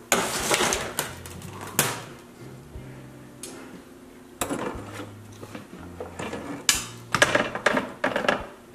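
Metal wire-mesh air fryer trays and tongs clattering and scraping as trays are slid out of the air fryer oven and handled, a series of separate clanks with a cluster near the end. Faint background music underneath.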